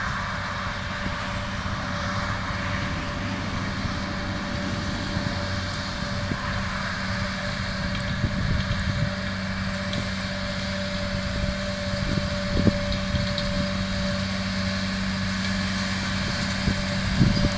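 Tractor and Schuitemaker Rapide 840 self-loading forage wagon working cut grass: the engine, pickup and chopping rotor run as one steady, even drone.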